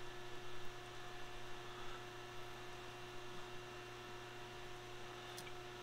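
Steady low electrical hum, with faint scraping from a tap being hand-turned in steel early on and a single small click near the end.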